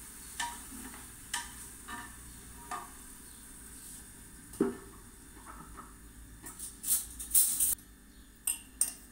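Meat faintly sizzling in a metal pot as a wooden spoon stirs it, with light knocks of the spoon against the pot and one heavier clunk about halfway through. Near the end there is a burst of scraping and then two sharp clicks.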